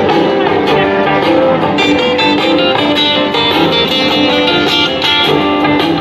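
Music led by guitar, with a run of plucked and strummed notes.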